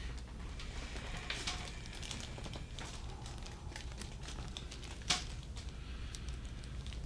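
Quiet handling noise: scattered soft rustles and light clicks over a steady low hum, with one sharper click about five seconds in.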